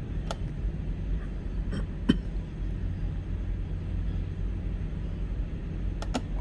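Button clicks on a handheld automotive scan tool while it reads trouble codes: a few short sharp clicks, the loudest about two seconds in and a pair near the end, over a steady low hum.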